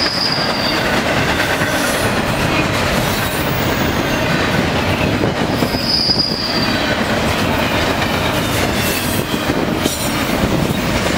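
Double-stack intermodal container cars rolling past at speed: a steady rumble of wheels on the rails, with a brief high wheel squeal right at the start and again about six seconds in.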